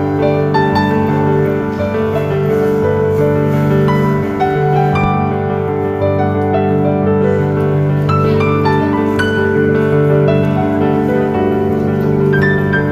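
Background music: a piano playing single notes over sustained chords.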